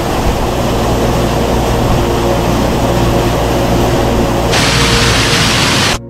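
Small waterfall pouring into a rocky plunge pool: a loud, steady rush of falling water. The higher hiss thins about four and a half seconds in.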